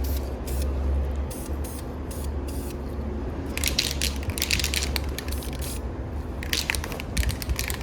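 Aerosol spray-paint can hissing in short bursts, with a run of quick spurts about halfway through and another near the end, over a steady low hum.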